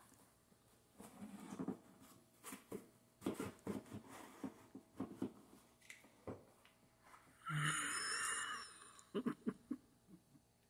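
Scattered clicks and knocks of plastic car-seat parts being handled while a screw is fitted, with a harsh noise lasting about a second near the middle, then a few more clicks.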